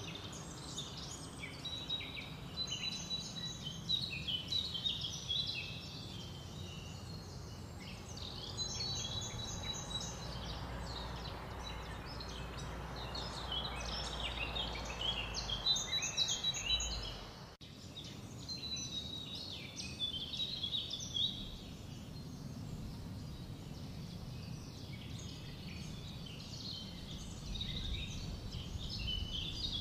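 Songbirds singing outdoors in bursts of quick, twittering chirps, phrase after phrase, over a steady low rumble of outdoor background noise. The sound briefly drops out a little past halfway.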